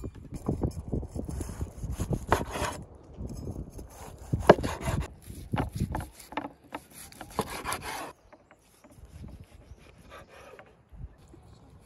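Large chef's knife cutting skewered grilled lamb kebab on a wooden cutting board, the blade rasping and scraping on the board in repeated strokes. It goes much quieter about eight seconds in.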